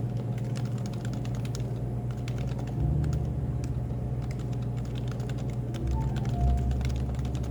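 Continuous typing on a Happy Hacking Keyboard: quick, irregular keystroke clicks over a steady low background hum.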